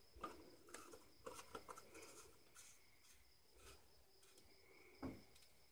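Faint clicks and rustles of a funnel being handled and lifted out of an engine's oil filler neck, a few separate small knocks over several seconds. Behind them is a faint steady high insect trill.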